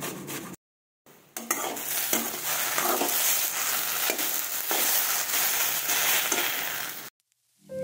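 Food sizzling in hot oil in a pan while it is stirred, the ladle strokes coming about once a second. A brief rasp of beetroot being grated comes just before it, and the sizzling cuts off shortly before the end.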